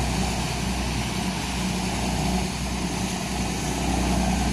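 Fishing boat's inboard engine running steadily under load, its propeller churning the water as it pulls on tow lines to right a capsized boat; a low, even hum.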